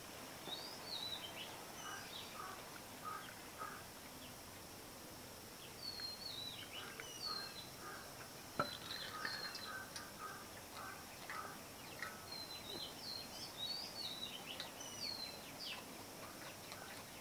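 Birds chirping and calling, with short high down-slurred notes and runs of quick repeated lower notes, over a faint steady outdoor hiss. One sharp click about eight and a half seconds in.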